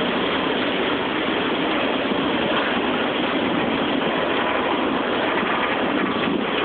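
Freight train cars rolling over a steel girder bridge: a loud, steady, even noise of wheels running on the rails.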